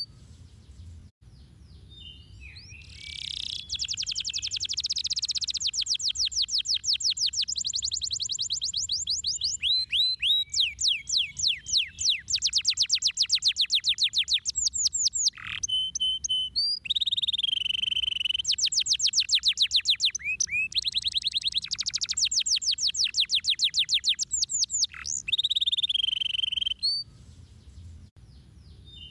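Domestic canary singing a long, high-pitched song of very fast rolling trills and rapid repeated notes, phrase after phrase with brief breaks. It starts about three seconds in and falls quiet shortly before the end.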